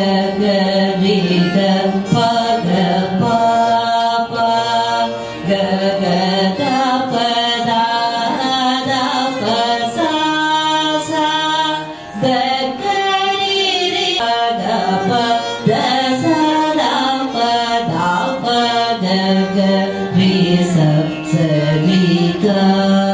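A woman singing Indian classical (Carnatic-style) vocal music with violin accompaniment, in continuous ornamented phrases with gliding, wavering notes.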